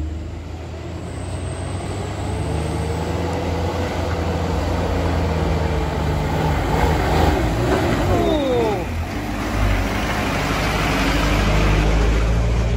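Diesel truck engine pulling hard up a steep gravel incline, getting louder as the truck approaches and passes close by near the end. There are brief falling squeals about eight seconds in.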